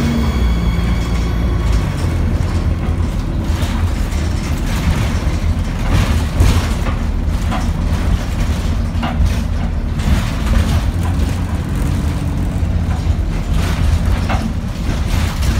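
Dennis Dart single-deck bus under way, heard from inside near the back: the rear-mounted diesel engine runs with a steady low drone, and short knocks and rattles from the body come every few seconds.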